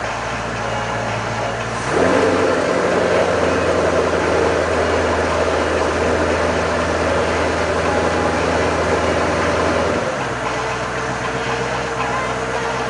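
Motorboat engine running, throttled up about two seconds in, held at a steady higher speed, then eased back down to a lower speed near the end.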